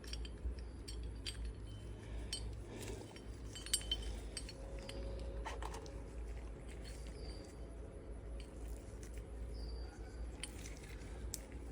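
Light, scattered metallic clinks and taps of small parts being handled as the bearing caps are taken off a new steering-shaft universal joint, over a steady low hum.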